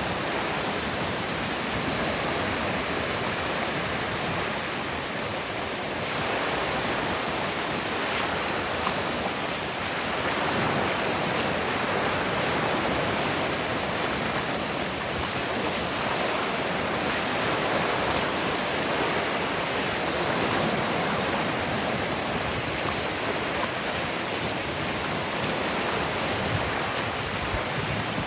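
Ocean surf washing onto a sandy beach: a steady rush of water that swells and eases every few seconds.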